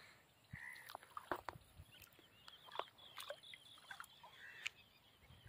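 Faint bird calls, many short chirps, with scattered small clicks and knocks.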